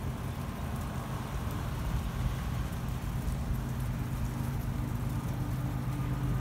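A steady, low engine hum with a faint background hiss, holding even throughout.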